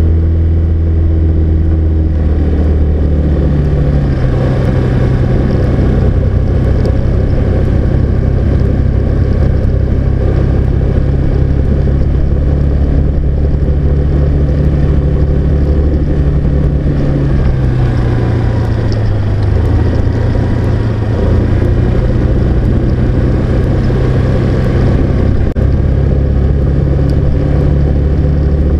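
Car engine and road noise heard from inside the cabin while driving: a steady low engine hum whose pitch sinks a little about two-thirds of the way through and then comes back up.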